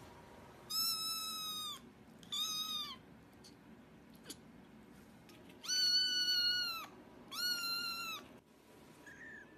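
A kitten meowing four times, in two pairs of high-pitched calls each lasting about a second or less.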